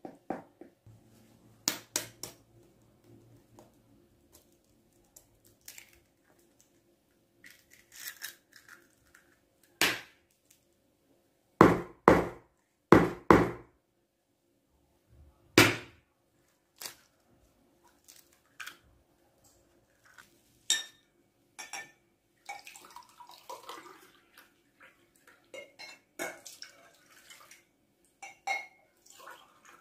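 Kitchen handling sounds: sharp taps and knocks, several in quick pairs, as eggs are cracked for dough, followed by lighter clinks and rustling as a glass and an aluminium pot of milk are handled.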